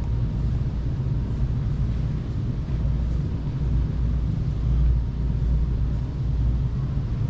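Steady low rumble of background room noise, even and unbroken, with a faint steady hum above it.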